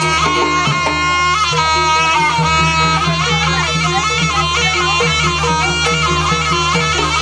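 East Javanese jaranan music: a shrill double-reed slompret plays a wavering, ornamented melody over a steady low drone and a repeating pattern of short struck notes.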